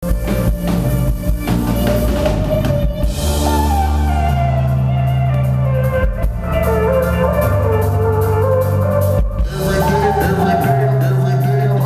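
A live band playing electronic-style instrumental music: drum kit beats under deep held bass notes, with a lead melody line sliding above.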